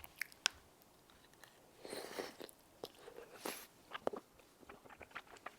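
A person eating close to the microphone: quiet chewing and wet mouth clicks, with a few sharper clicks and two brief, louder noisy sounds about two and three and a half seconds in.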